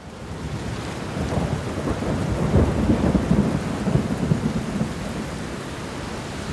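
Heavy rain with rumbling thunder, fading in over the first second; the thunder rumble swells strongest in the middle.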